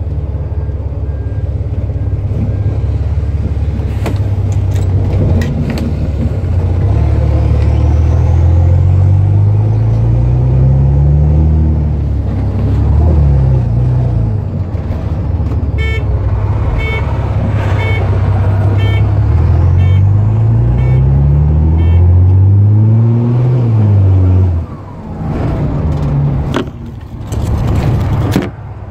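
Cummins 6.7-litre diesel in an Optare Solo minibus, running loud because the pipe from the turbo to the back box has fallen off. Its pitch climbs and drops back several times as the bus pulls away and accelerates. A short run of the dashboard indicator's loud beeps comes in the middle.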